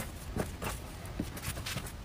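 A steel cleaver and hands handling cut vegetable strands on a wooden chopping board: a handful of irregular light knocks and clicks as the blade touches the board and the strands are gathered onto it.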